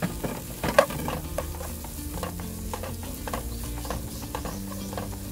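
Wooden spatula scraping and stirring chopped ham, carrot and greens in a frying pan, with a light sizzle. It is a run of irregular scrapes and taps, the sharpest about a second in.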